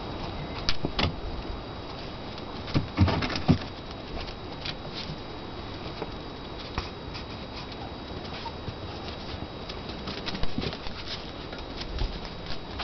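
Irregular scuffling taps and knocks of a cat and a small dog play-fighting on a tiled floor, with a cluster of louder knocks about three seconds in.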